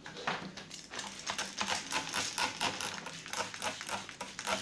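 Hand spray bottle misting orchid leaves: a rapid run of short spritzes, about three or four a second.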